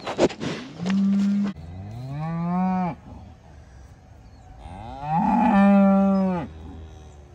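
Cattle mooing: a short moo about a second in, a rising moo soon after, and a longer, louder moo around five seconds in. At the start, a cow's nose rubbing against the camera makes scraping noises.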